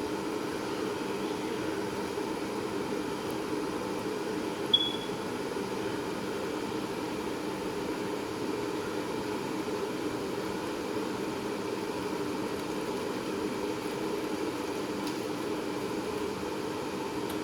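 Steady fan-like hum in a kitchen while chicken and masala cook in a pot, with one short, sharp metallic clink about five seconds in.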